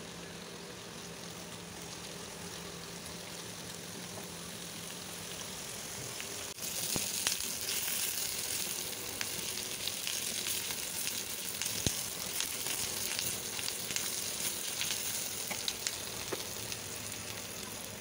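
Onions, tomato, dried red chillies, garlic and watermelon seeds frying in hot oil in a pan, a steady sizzle. About six seconds in it turns louder and crackles with many small pops.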